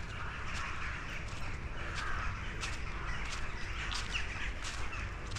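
Footsteps crunching through dry fallen leaves at a steady walking pace, about three steps every two seconds, with crows cawing in the background.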